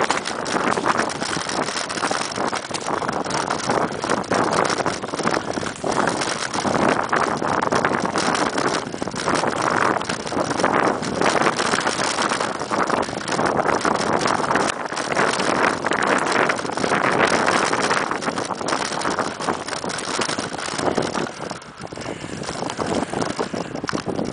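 Mountain bike riding fast over a rough dirt forest trail: a constant clatter of small rattles and knocks from the bike shaking over the ground, with tyre noise and wind on the microphone.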